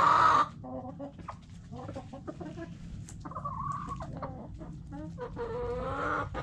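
White Silkie rooster's crow ending about half a second in, the loudest sound, followed by scattered clucks and short chicken calls, with another drawn-out call near the end.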